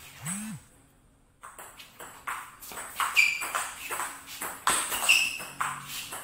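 Table tennis rally: the ball clicks sharply off the paddles and bounces on the table in quick alternation, some hits with a short ringing ping. It starts about a second and a half in.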